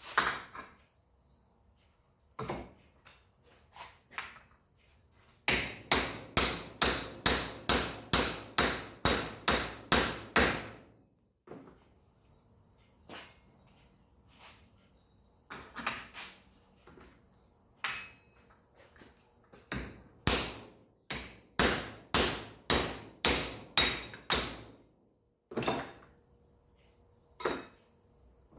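Hammer blows on metal: a run of about a dozen steady strikes, a pause with a few scattered knocks, then a second run of about ten strikes, each blow with a bright metallic ring.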